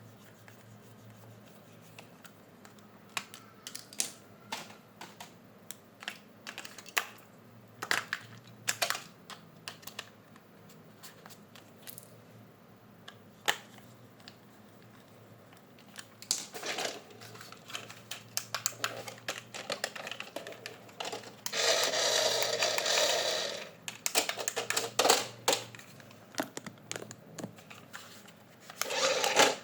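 Scattered clicks and taps of plastic toys and packaging being handled, with a rustling burst lasting about two seconds past the middle and another cluster of clatter near the end.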